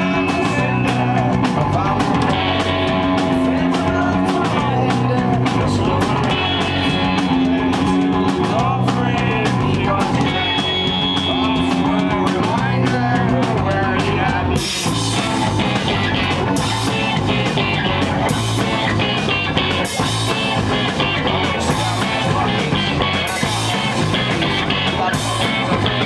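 Rock band playing live: distorted electric guitar and drum kit with a singer's voice over them. About halfway through, the cymbals come in hard and the sound gets fuller and brighter.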